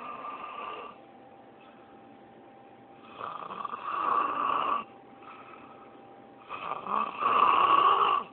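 A drunk man snoring heavily in his sleep: loud snores about every three seconds, three in all, the first ending about a second in and the last the loudest, with quieter breaths between.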